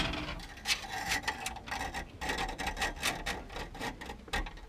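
Electrical wire being pulled by hand through a channel in a telehandler cab panel: irregular rubbing and scraping with light clicks as the cable drags along the panel.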